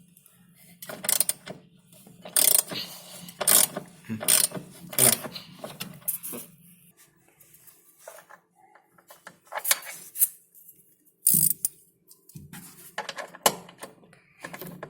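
Metal clicks, knocks and scrapes of hand tools and parts being worked at the washing machine's motor mounting bolts, loosened so the drive motor can be shifted to take up a slack belt. A low steady hum underneath stops about seven seconds in and comes back near the end.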